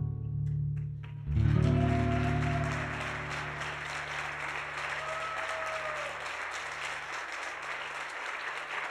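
Acoustic guitar closing a song: a last strummed chord about a second in rings out. Audience applause starts with it and goes on steadily to the end.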